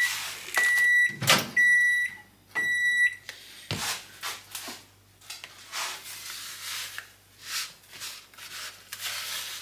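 Microwave oven beeping three times about a second apart as its heating cycle ends, with a sharp click among the beeps. Then a bowl is set down with a thud, and a spatula scrapes and stirs the warm brownie butter mixture in a plastic bowl.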